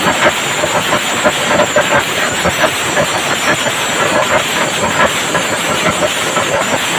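Chenda melam: massed chenda drums beaten with sticks, with ilathalam hand cymbals clashing, in a loud, unbroken wall of rapid strokes.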